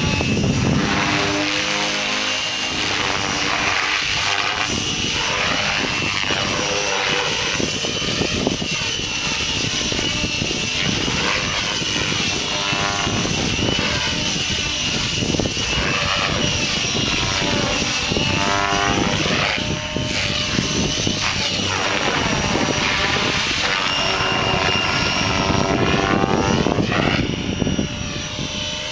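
Vibe E-8 electric RC helicopter, with a Scorpion 4035 brushless motor, flying aerobatics. Its spinning rotor blades make a loud, steady whoosh over a high, constant whine, and a swirling, phasing swish rises and falls every few seconds as it swings past and away.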